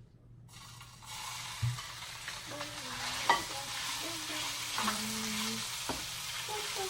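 Diced chicken sizzling as it fries in hot oil in a pan. The sizzle starts about half a second in and grows louder a second in, with a few sharp knocks of a utensil against the pan.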